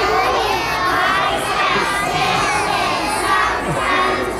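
Many young children's voices together in unison, over general audience noise.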